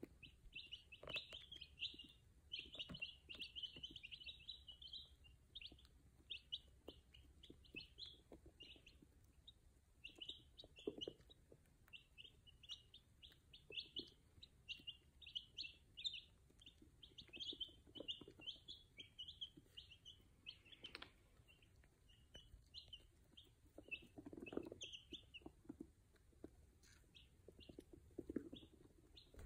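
Five- and six-day-old baby chicks peeping: a continuous stream of short, high chirps, several a second, fairly faint throughout.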